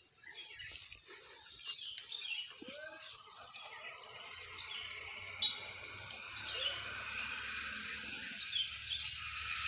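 Outdoor ambience: small birds chirping in short calls over a steady high hiss, with one sharp click about five and a half seconds in.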